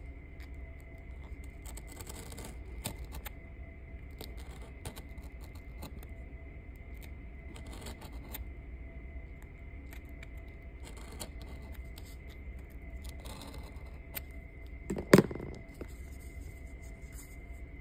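Craft knife cutting slits into a piece of card: faint short scratching strokes and small clicks over a steady background hum, with one loud knock near the end.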